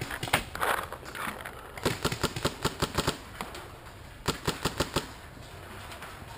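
Paintball markers firing: a rapid string of about eight sharp pops about two seconds in, then a second string of four pops later on.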